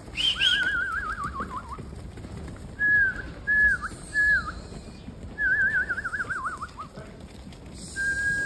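A person whistling to drive a flock of sheep: a long warbling whistle that trails down in pitch, three short swooping whistles, a second long falling warble, and a held whistle near the end.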